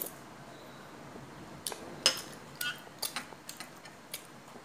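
A metal spoon clinking lightly against a bowl during eating: a string of short, sharp clinks, some with a brief ring, starting about a second and a half in.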